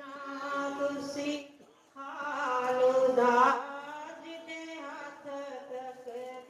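A woman singing a devotional chant unaccompanied through a microphone, in long held, wavering notes. There is a short break about two seconds in, and the next phrase is louder.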